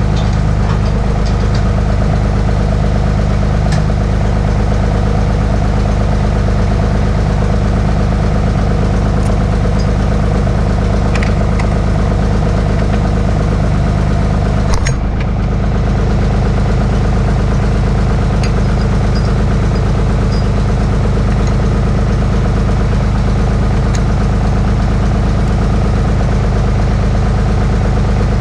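Allis-Chalmers 5050 tractor's three-cylinder diesel engine idling steadily, with a few light metallic clinks from the PTO driveshaft and hitch being handled and one sharper clank about halfway through.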